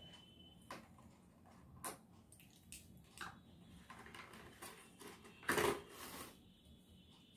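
Handling of small packaging: faint clicks and rustles as a small cardboard box and a charging wire are turned over in the hands, with a louder rustle about five and a half seconds in.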